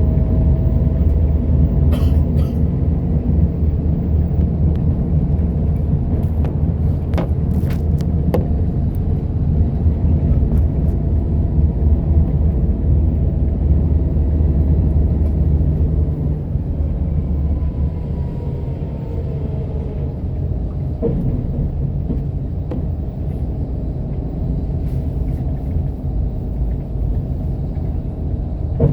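M7412 express bus running on the road, heard from inside: a steady low engine and road rumble that eases a little about halfway through, with a few short clicks and rattles.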